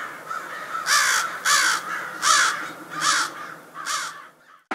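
Crow cawing: a run of harsh caws about three-quarters of a second apart, softer at first, with the five loudest from about a second in.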